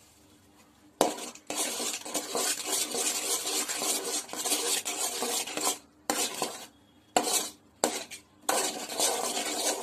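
Steel spoon stirring and scraping a thick, sticky halwa mixture around a pan. It starts about a second in with a long stretch of continuous scraping, then goes on in several shorter strokes with brief pauses near the end.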